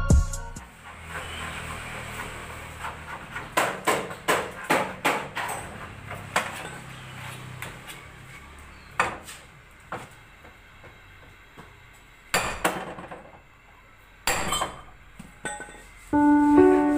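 Hammer blows on metal in an open-air truck repair yard: a quick run of knocks a few seconds in, then a few more single knocks, over a low hum. Background piano music comes in near the end.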